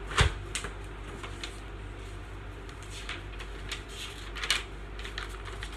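A soft thump about a quarter of a second in as a body drops back onto a bed, followed by scattered light rustles and clicks of paper pages being handled.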